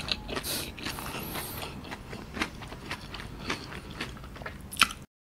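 A man chewing a mouthful of KFC Cheezilla Double Down (crispy fried chicken fillets with melted cheese): quiet, wet mouth sounds with small crunchy clicks. The sound cuts off abruptly near the end.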